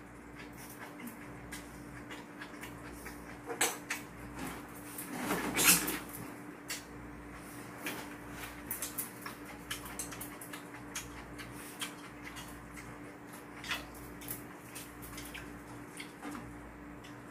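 Eating sounds: glass noodles being chewed and slurped, with many light chopstick clicks against bowls and a pan. There is a louder noisy sound about five seconds in and a steady low hum underneath.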